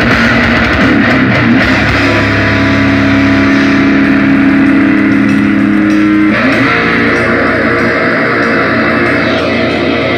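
Rock band playing live through a PA, loud, with electric guitar and bass over drums. A held guitar chord rings from about two seconds in and breaks off about six seconds in, and the full band carries on.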